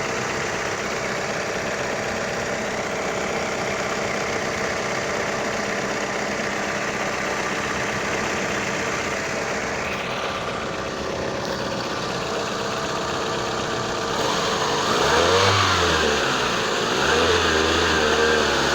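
1996 Toyota Camry engine idling steadily with its new alternator belt fitted, no squeal or odd noise. About fourteen seconds in it gets louder and is revved up and down a few times.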